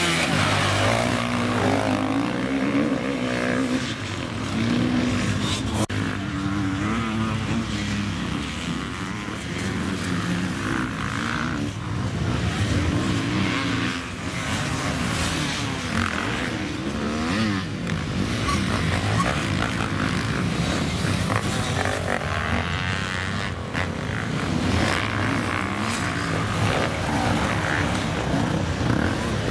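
Several enduro motorcycles racing on a sand track, their engines revving up and down and overlapping as riders accelerate, shift and brake through the climbs and corners.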